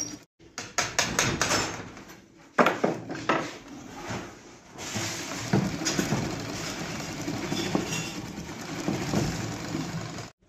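Hand-cranked Shoukat sewing machine stitching through cloth: quick metallic clicking of the needle and shuttle mechanism, which turns into a faster, continuous rattle about halfway through.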